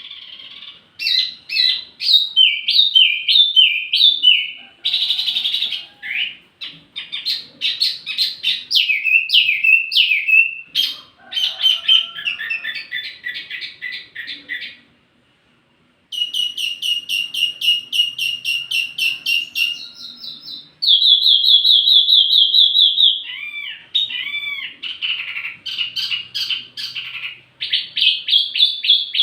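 A small songbird, the 'wambi mini', singing a long run of rapid, high chirps and fast trills in changing phrases, with one brief pause about halfway through. The song is a tutoring recording used to teach flowerpeckers (tledekan) to sing.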